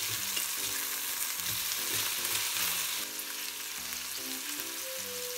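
Chicken thighs frying in oil in a stainless steel frying pan at medium heat: a steady sizzle.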